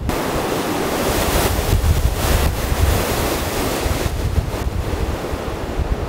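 Very strong mountain wind gusting through the trees, a loud unbroken rushing like surf, with low rumbling buffeting on the microphone.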